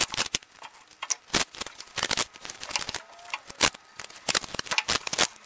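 Masking tape being pulled off the roll and wrapped around a wooden block and its scrap pieces: a series of short, sharp rips and handling knocks.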